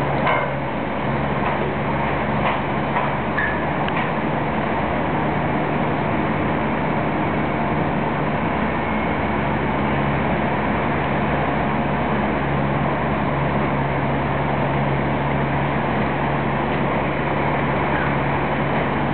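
Steady low hum of diesel construction machinery running at a demolition site, with a few light metallic knocks and clinks in the first few seconds and again near the end.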